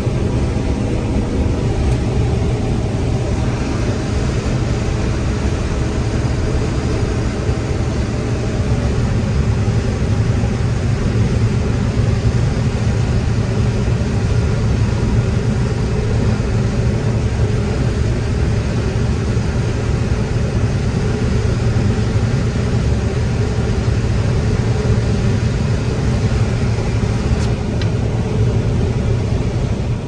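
John Deere 9760 combine running steadily while harvesting corn, heard from inside the cab as an even, loud hum of engine and threshing machinery.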